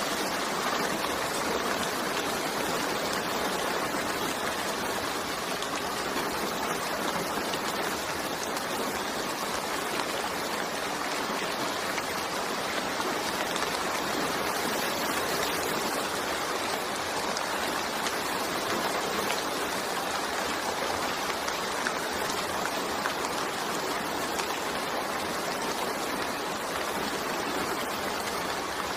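Steady rain falling, an even, unbroken hiss that neither builds nor fades.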